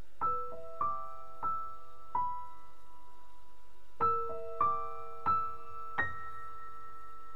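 Slow background piano music: single notes struck one at a time and left to ring, a phrase of four notes, a short pause, then another four.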